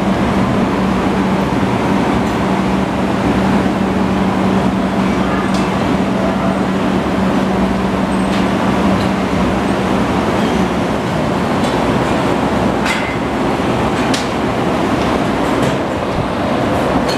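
Honda GL1500 Gold Wing's flat-six engine idling steadily, with a steady hum alongside it that fades out about ten seconds in.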